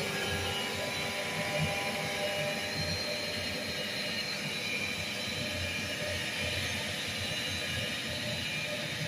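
Cylinder-head resurfacing machine running steadily, a constant mechanical hum and whine with several steady tones and no change in level.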